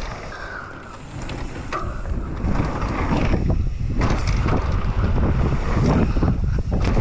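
Wind rushing over the camera microphone along with the rattle and tyre noise of a mountain bike rolling over a dirt trail, growing louder about two seconds in.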